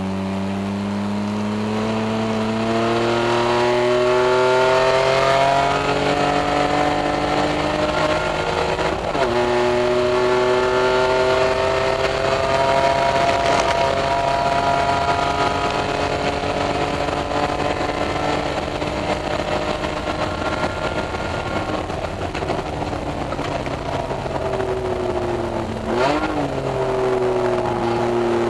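Onboard sound of a BMW Z3 Coupe race car's straight-six engine under hard acceleration. The revs climb, drop at an upshift about nine seconds in, then pull again before easing off. Near the end there is a quick rev blip at a downshift before it accelerates once more.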